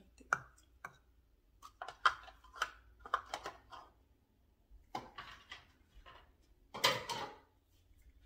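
Measuring cups and utensils clinking and tapping against a mixing bowl as flour is scooped and added: a scattered series of separate knocks, with a longer, louder clatter near the end.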